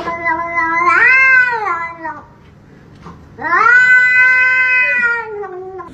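A domestic cat gives two long, drawn-out meows. The first holds steady, then rises and falls in pitch; the second starts about three and a half seconds in and slowly falls.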